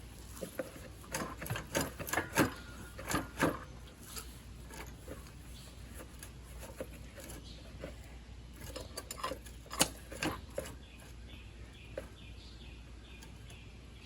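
Sharp metallic clicks and knocks of tools and metal parts being handled as a motor is shifted on its mount to tighten a drive chain. They come in two clusters, one in the first few seconds and one around the middle, with a faint, even ticking near the end.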